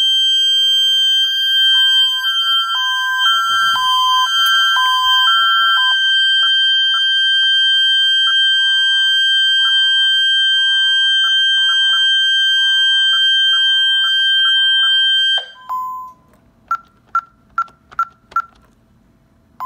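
Security alarm system sounding: a loud steady high tone with a repeating pulsed beep over it, which cuts off suddenly about three-quarters of the way through. A handful of short single beeps follow near the end.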